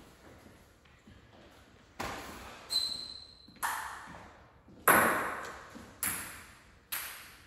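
Table tennis ball hitting paddles and the table: six sharp clicks roughly a second apart, loudest about five seconds in, each ringing on in the large room.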